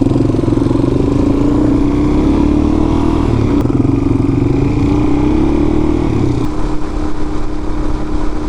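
Small single-cylinder motorcycle engine running on the road: it rises in pitch, eases off about three seconds in, rises again, then holds a steady pitch for the last couple of seconds.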